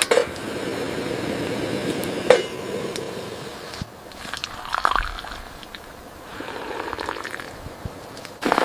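Sharp knocks, about a second and a half apart near the start, over a steady rushing noise that stops about four seconds in, followed by scattered crunching sounds of handling or stepping.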